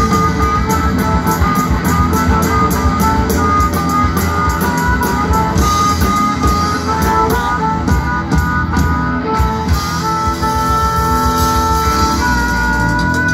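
Live rock band playing: electric guitar over bass and drum kit, the melody moving in short notes and then settling into long held notes in the last few seconds.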